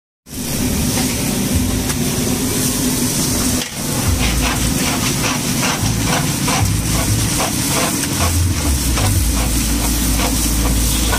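Hot oil sizzling and hissing in a large iron kadai as puris deep-fry, over a steady low rumble. From about four seconds in, short crackles repeat irregularly.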